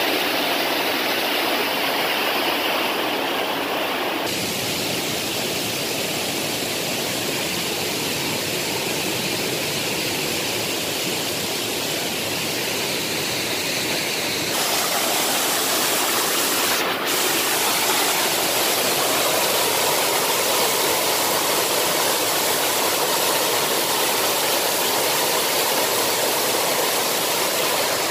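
Waterfall: water pouring over rocks and splashing into a pool, a steady loud rushing noise. Its tone changes abruptly twice, about four seconds in and again about halfway.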